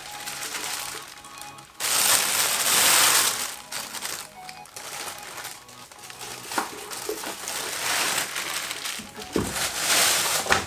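Clear plastic packaging bag crinkling as a subwoofer is handled and unwrapped, loudest about two seconds in and again near the end, over background electronic music.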